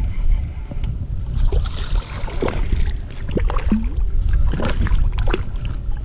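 Wind rumbling on the microphone and water slapping against a kayak hull, with scattered light clicks and knocks from handling a baitcasting rod and reel in the middle of the stretch.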